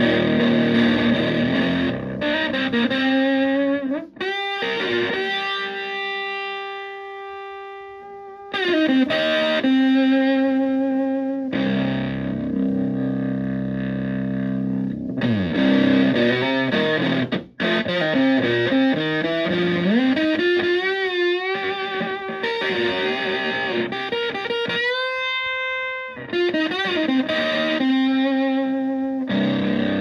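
Electric guitar (a Stratocaster) played through a Tone Bender MK1.5-style fuzz pedal into a Fender Twin Reverb-style amp, giving a fuzzy distorted tone. It plays riffs and chords, with one long note held about four seconds in that slowly dies away, and string bends and vibrato in the second half.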